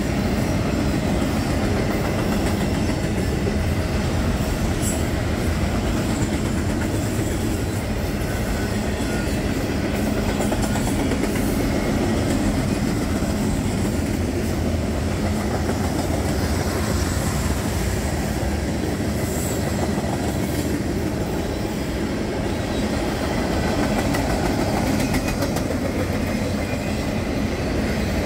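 A Canadian National freight train's autorack and tank cars rolling past close by on steel wheels, a steady noise of the passing train.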